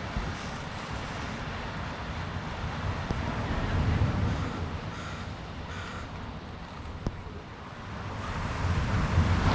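Ocean surf washing on the beach, mixed with wind on the microphone. The surf swells about four seconds in and again near the end. A bird caws briefly a few times in between.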